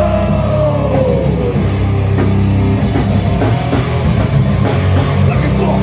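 Rock band playing live in rehearsal: drum kit over heavy, sustained low chords from bass and guitar, with a long note bending downward in the first second or so.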